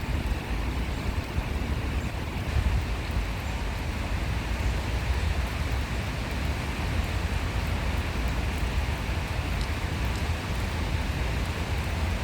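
Steady rushing noise of a flowing stream, with a constant low rumble underneath.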